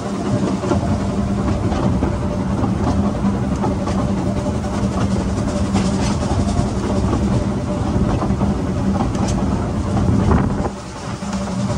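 Narrow-gauge train hauled by a quarry Hunslet steam locomotive running along the line, heard from an open carriage: a steady rumble of wheels on rail with a held hum, easing briefly near the end.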